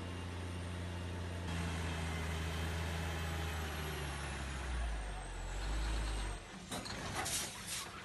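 Heavy vehicle's engine running steadily, its note sinking lower and then cutting off abruptly about six and a half seconds in, followed by a few sharp knocks.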